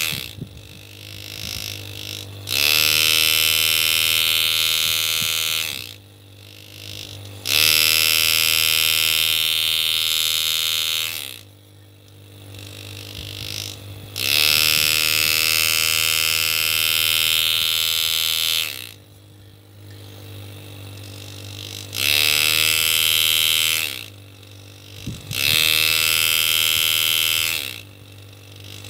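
A foot-controlled hand engraver, rebuilt with a new body tube and piston, hammering its graver into a steel plate in five bursts of two to five seconds. Each burst rises quickly in pitch as the pedal is pressed and the piston speeds up, then drops away as the pedal is released. A steady low hum runs underneath.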